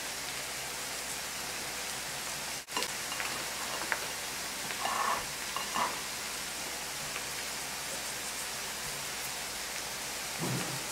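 Chopped onion frying in olive oil in a pan, a steady sizzle. Around the middle come a few brief soft sounds of raw potato slices being tossed by hand.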